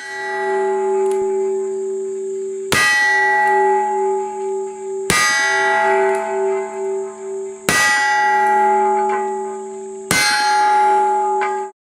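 Shots from a .44 Starr single-action cap-and-ball revolver fired with black powder, four about two and a half seconds apart. Each shot is followed by a loud metallic, bell-like ringing that lasts until the next shot. The ringing cuts off suddenly near the end.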